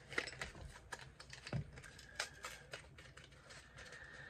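Light, irregular plastic clicks and taps from handling a lip liner and its packaging, with a few sharper clicks and one soft low knock.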